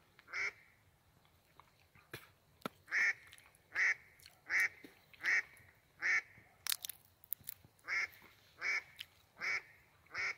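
Live decoy duck quacking: a single quack, then two runs of evenly spaced quacks, a little more than one a second.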